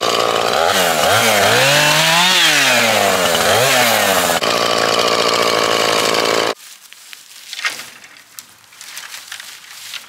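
Two-stroke gas chainsaw running, revved up and down so its pitch dips and climbs repeatedly. It settles to a steadier note about four seconds in and stops abruptly about two seconds later.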